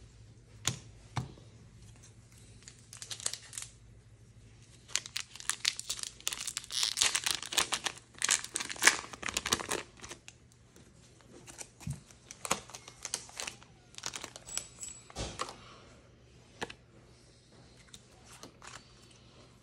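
Foil booster-pack wrapper crinkling and being torn open by hand, a dense crackle for about five seconds in the middle, with scattered lighter crinkles before and after.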